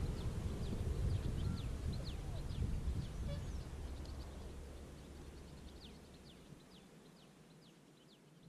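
Birds chirping, many short quick calls that fall in pitch, over a low rumble that fades away steadily.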